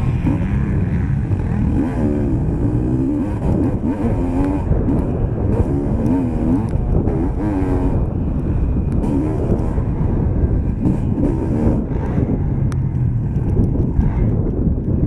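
Motocross bike engine heard on board, revving up and down again and again as the throttle is opened and shut through the turns and bumps, its pitch rising and falling every second or so over a constant low rumble.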